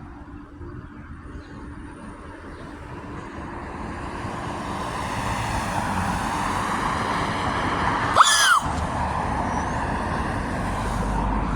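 Road traffic noise growing louder over several seconds as a vehicle approaches, then holding steady. A short squeal rises and falls in pitch about eight seconds in.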